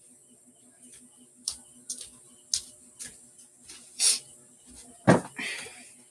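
Someone moving about close to a desk microphone: scattered sharp clicks and knocks, a rustle, and a heavier thump about five seconds in, as a person comes back and settles in front of the microphone.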